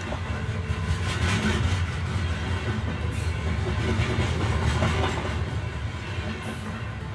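Model railway trains running on a miniature layout's track: a steady low rumble with a hiss over it, easing slightly near the end.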